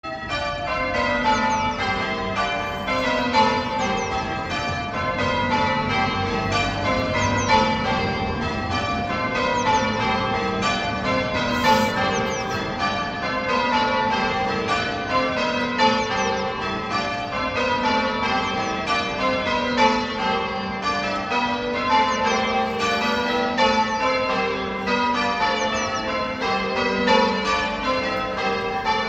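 Church bells rung in rapid descending runs, one bell after another, repeating without pause, as in change ringing.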